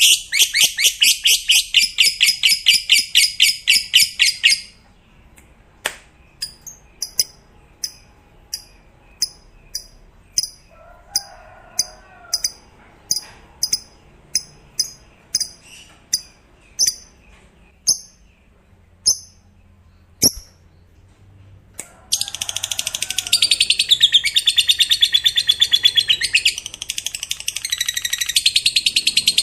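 Lovebird 'ngekek': a long, very fast, high chattering trill lasting about four and a half seconds, then single sharp chirps about once a second, then a second long chattering trill starting about 22 seconds in.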